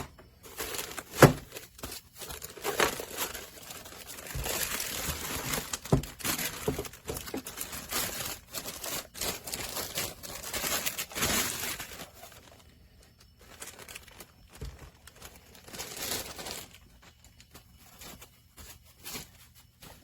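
Plastic packaging crinkling and rustling as a boxed bench power supply is unwrapped and handled. There are a few sharp knocks, the loudest about a second in. The rustling is busiest for the first twelve seconds or so, then comes in sparser bursts.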